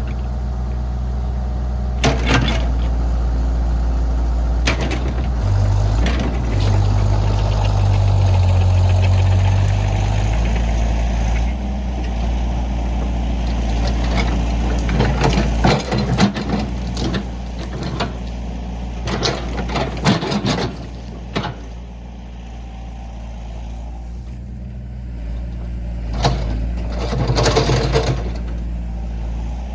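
Excavator's diesel engine running steadily, working harder for a few seconds near the start, with scattered metallic clanks and knocks from the machine's work.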